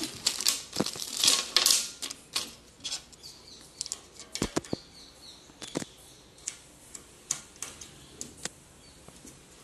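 Hands working on a boltless steel rack: a rustle in the first couple of seconds, then scattered sharp clicks and light taps of small parts against the steel frame and shelf board, growing sparser toward the end.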